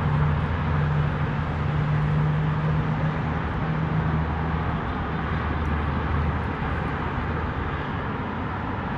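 Steady drone of motor traffic: a low engine hum over a wash of road noise, the hum fading in the last couple of seconds.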